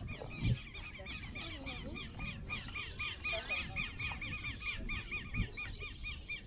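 Birds calling in a fast, steady run of short repeated high notes, several a second, with a couple of brief low thumps underneath.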